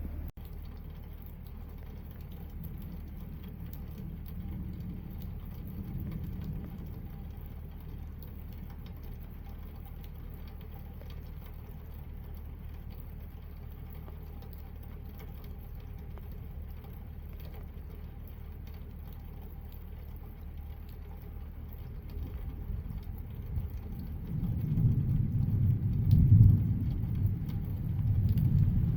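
Distant thunder: a deep rumble that builds about three quarters of the way in and grows loudest near the end, over light rain pattering.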